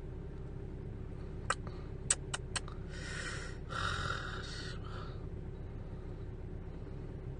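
A man breathing out heavily twice into the phone's microphone in frustrated sighs, preceded by a few quick sharp clicks, over a steady low hum.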